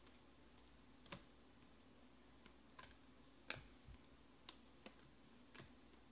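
Faint, irregular clicks and snaps of glossy Panini Select baseball cards being slid one by one off a hand-held stack, about seven in all, the loudest a little past the middle.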